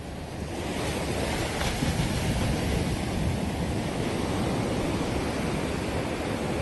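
Surf washing onto a sandy beach, a steady rush that grows a little louder about half a second in, with wind on the microphone.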